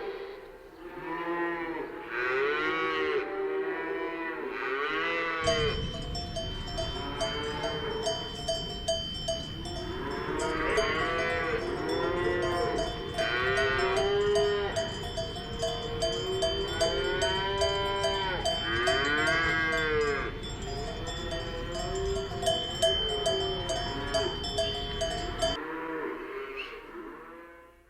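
A herd of cattle lowing, many moos overlapping one after another. From about five seconds in until shortly before the end, cowbells clank steadily under the calls.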